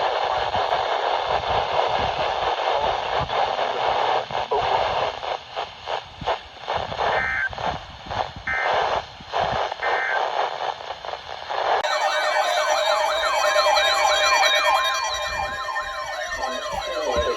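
Static-laden radio reception carrying three short bursts of Emergency Alert System data-header tones. About twelve seconds in, it cuts abruptly to several wailing siren tones layered together, which slide down in pitch near the end.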